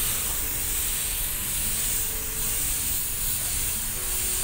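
Airbrush spraying thin fluid acrylic paint: a steady hiss of compressed air from the nozzle, swelling slightly as the spray is worked across the canvas.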